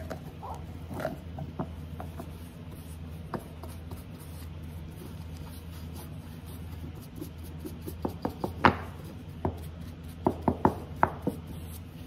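Handling noises from staining a small carved wooden chair part at a workbench: scattered light knocks and clicks, with a cluster of sharper ones from about eight seconds in, over a steady low hum.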